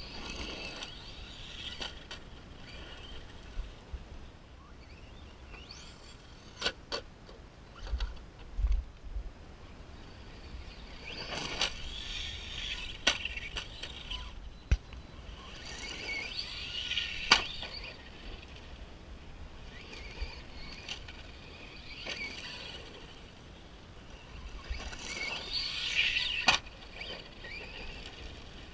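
RC monster truck driving on a gravel dirt track: motor and tyre noise swells in bursts as it accelerates, about four times, with several sharp knocks from landings or impacts in between.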